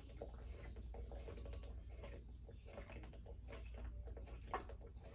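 Faint gulps and small clicks of someone drinking from a plastic bottle, swallowing in repeated sips, with one sharper click about four and a half seconds in.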